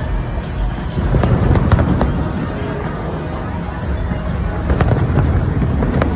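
Fireworks going off: a continuous low rumble of booms with sharp cracks, several close together between one and two seconds in and more near the end, over background music.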